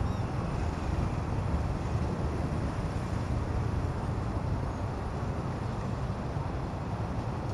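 Steady low rumble of riding a motorcycle in city traffic: the bike's engine and wind buffeting the camera microphone, with surrounding traffic mixed in.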